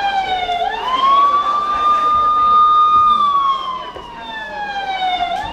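Siren sound effect wailing in a slow cycle. The high tone slides down, sweeps quickly back up about half a second in, holds for a couple of seconds, then slides down again and climbs back near the end.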